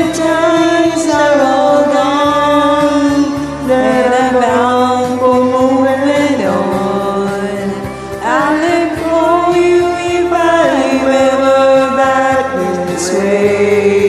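Karaoke duet: women's voices singing a slow country song over a backing track, drawing out long held, wavering notes in several phrases.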